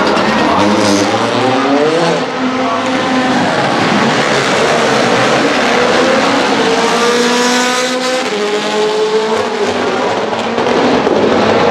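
Rally car engine, a turbocharged four-cylinder, running hard on a stage. Its pitch drops off in the first couple of seconds, then climbs through the revs around the middle and stays high near the end.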